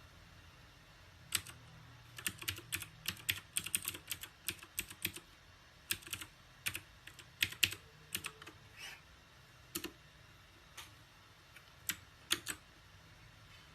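Typing on a mechanical keyboard: irregular key clicks, a quick flurry in the first few seconds, then scattered single and paired presses that stop about a second before the end.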